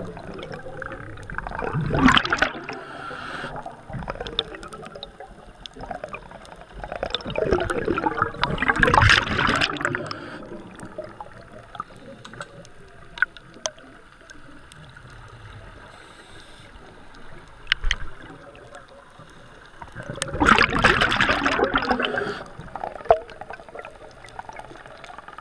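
Scuba diver's own breathing through a regulator, heard underwater through the camera housing: three long bubbling bursts of exhaled air, about two seconds in, around seven to ten seconds and around twenty-one seconds, with a steady hiss and scattered sharp clicks between them.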